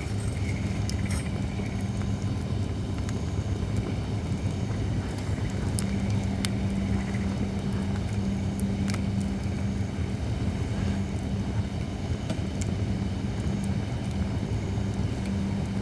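Holly-wood campfire crackling, with a few sharp, sparse pops, over a steady low hum.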